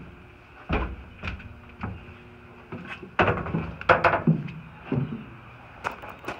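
Footsteps stepping down out of a railcar doorway and walking on gravel ballast: a string of irregular heavy thuds and crunches.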